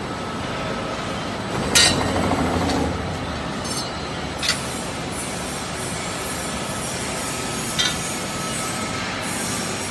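Slotted strut channel roll forming machine running with a steady mechanical noise. Three sharp bangs come a few seconds apart. The first, about two seconds in, is the loudest and trails off for about a second.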